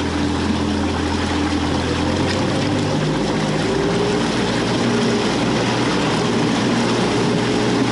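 Mercury FourStroke outboard motor running a small boat at speed, with the rush of water and wind. The engine's note changes about three seconds in.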